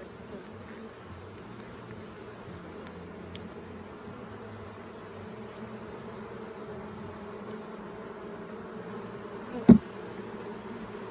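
Honeybees buzzing steadily around an open hive, a many-voiced hum. Near the end there is one short, sharp bump, the loudest moment.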